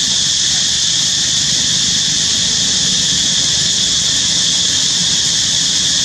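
A steady, high-pitched hiss over a low rumble.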